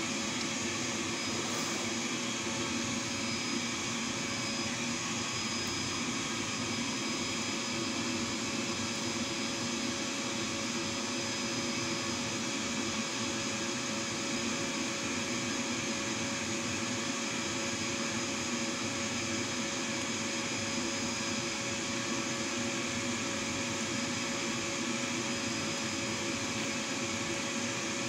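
Steady mechanical hum and hiss with a couple of constant whining tones, unchanging throughout.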